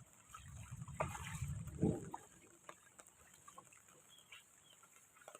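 Wind gusts buffeting the microphone as a low rumble for about two seconds, then a quieter stretch of scattered drips and ticks of rain.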